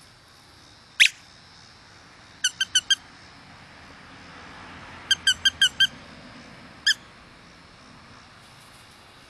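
12-week-old Pomeranian puppy yapping in high-pitched, squeaky yips: one about a second in, a quick run of four, then a run of five, then one more near the end.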